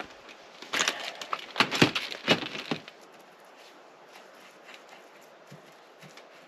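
Crinkling, crunching handling noises for about two seconds, then only a few faint ticks.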